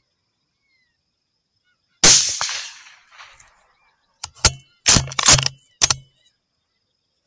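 A single rifle shot about two seconds in, its report trailing off over a second or more. A few sharp clicks and knocks follow over the next two seconds.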